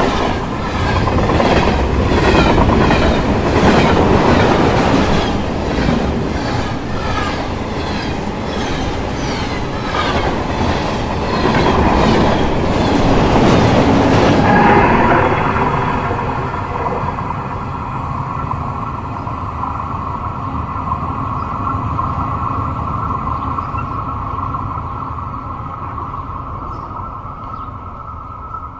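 Passing metro train: the wheels clatter over rail joints in a steady rhythm, loudest twice as the cars go by. About halfway through the clatter stops, leaving a steady hum with a held whine that slowly fades as the train moves away.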